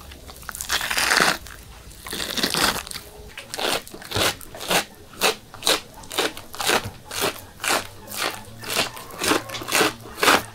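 A knife working a raw liver on a wooden board: first two long scraping, tearing strokes as the membrane is peeled away, then a steady run of short cuts, about two a second.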